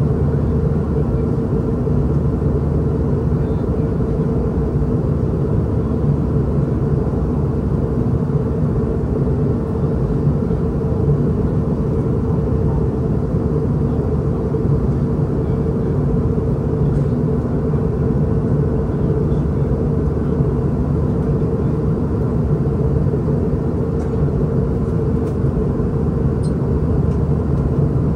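Steady in-flight cabin noise of a Boeing 717: the even rush of airflow and the constant hum of its two rear-mounted Rolls-Royce BR715 turbofan engines, with a few steady tones held throughout.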